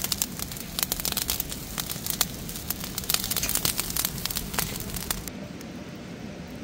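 Dry brushwood (twigs and thin vines) burning in a campfire with dense, irregular crackling and sharp pops. About five seconds in it gives way to a softer, steady hiss with only a few pops.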